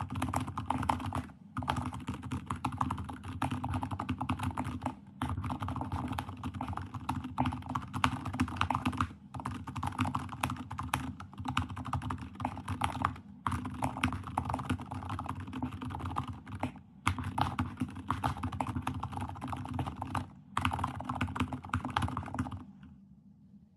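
Very fast typing on a Keychron K8 Max mechanical keyboard fitted with TTC Frozen Silent V2 silent linear switches: a rapid, continuous stream of muted keystrokes. It breaks off for brief pauses every few seconds and stops shortly before the end.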